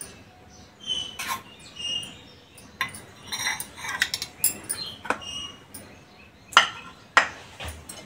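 Steel spoon clinking and scraping on a ceramic plate as sauce is spread over bread rounds, in a string of irregular light clicks. Two sharper, louder knocks of dishes near the end.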